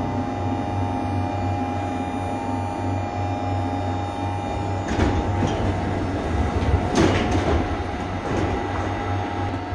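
Metro train standing at a platform with its doors open: a steady low hum and a constant electrical whine from the train's equipment, with two brief louder rushes of noise about five and seven seconds in.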